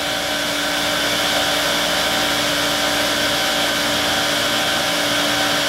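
Steady whirring of a motor-driven machine with a constant hum, unchanging throughout.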